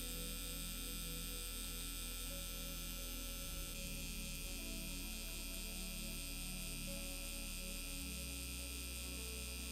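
Steady electric hum of a permanent-makeup tattoo machine running as it works a lip, with soft background music underneath.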